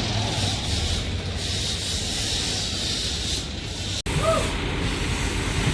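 Heavy machinery engine running steadily under a hiss. The sound cuts out for an instant about four seconds in.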